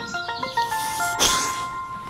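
Background music: a melody of short, clear notes stepping up and down, with a brief noisy burst about a second in.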